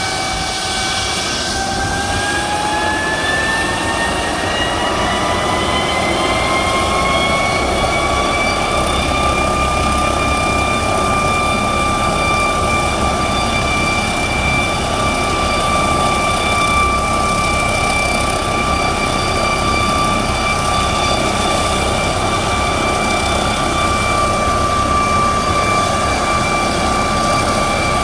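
McDonnell Douglas MD-900 Explorer helicopter's twin Pratt & Whitney PW207E turboshaft engines spooling up on the ground. A turbine whine rises in pitch over about the first nine seconds, then holds steady over a constant rushing rotor noise.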